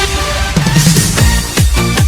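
Electronic dance music with a heavy kick-drum beat and synth tones; the beat drops out for a short break in the middle and comes back near the end.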